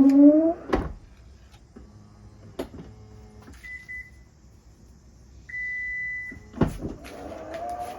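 Toyota Harrier 80-series power rear liftgate: a loud creaking groan that slides in pitch at the start, then a click, a faint motor hum, a short beep and a longer beep from the liftgate's warning buzzer, a knock, and the groan starting again near the end. The groan is the abnormal noise the gate makes when closing, which has grown louder over about a year of use.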